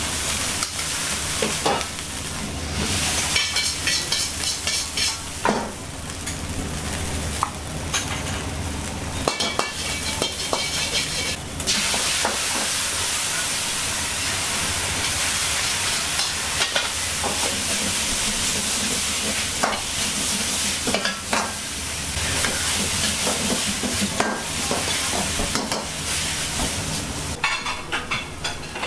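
Vegetables sizzling and frying in a wok over a gas flame, with a metal ladle scraping and clanking against the wok as they are stir-fried and tossed. The sizzling dies away near the end.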